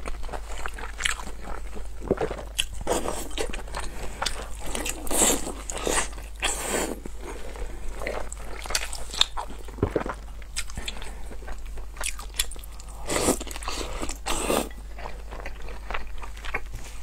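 A person biting into and chewing braised pig intestines close to a lapel microphone, in irregular bites and chews.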